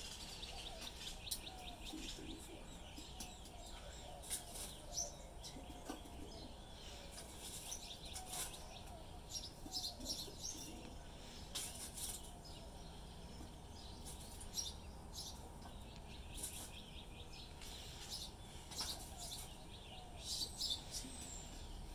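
Small birds chirping in short, scattered calls, with light clicks and clinks of metal tongs setting charcoal briquettes onto a cast-iron Dutch oven lid, over a faint low hum.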